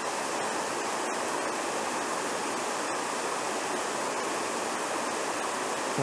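Small waterfall cascading over stepped rock ledges into a shallow creek: a steady, even rushing of water.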